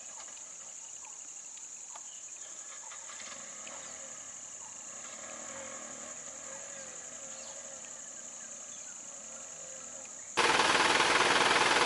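Roadside forest ambience: a steady high-pitched insect drone with scattered short bird calls. About ten seconds in, a sudden loud rough noise cuts in and carries on.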